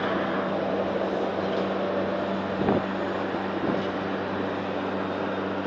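Steady hum and noise of running machinery in a factory workshop, with a couple of faint knocks about halfway through.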